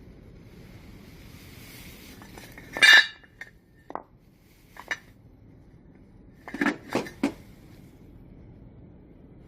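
Sharp metallic clinks and knocks of hard metal objects being handled. The loudest comes about three seconds in, with lighter ones after it and a quick run of three near the end.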